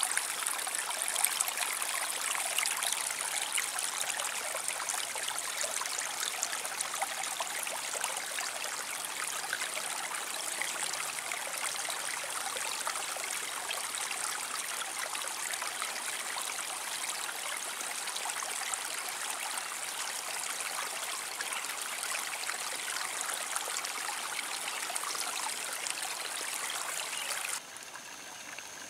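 Water in a shallow irrigation ditch trickling and babbling steadily over mud and weeds. Near the end it cuts off abruptly to a quieter background with a thin, steady high whine.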